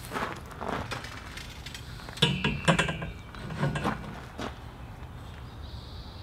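Steel mast pipe clanking against its welded hinge base as it is raised upright, with two loud ringing metal clanks about two seconds in and a few lighter knocks after. Footsteps on gravel in the first second; quiet after about four and a half seconds.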